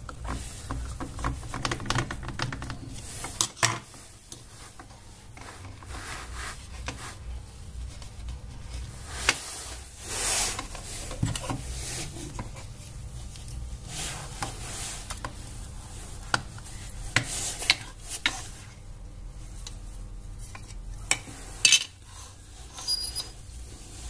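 A screwdriver and tweezers scrape and click against the plastic housing of a washing-machine door lock as its clips are pried open. There are irregular small clicks throughout, a longer scrape about ten seconds in, and a sharp click near the end.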